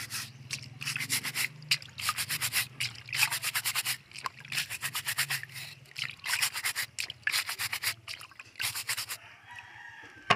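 Stiff plastic scrub brush scrubbing the shells of gooseneck barnacles (percebes) held over a basin of water, in short bursts of quick back-and-forth strokes with brief pauses between them, cleaning them for cooking.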